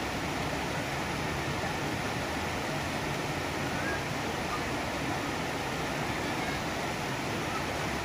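Steady rush of water pouring out of culvert pipes under a concrete causeway into a stream.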